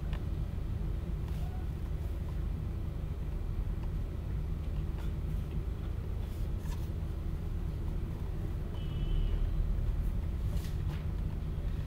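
Steady low hum and rumble of room background noise, with a few faint clicks and a short high chirp about nine seconds in.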